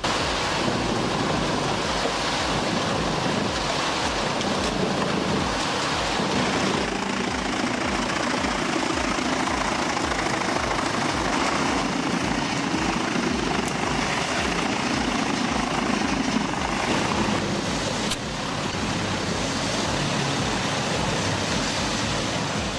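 Industrial wood chipper running under load as wood is fed through, a loud dense grinding noise over a low rapid thumping, with a sharp click and a brief dip about eighteen seconds in.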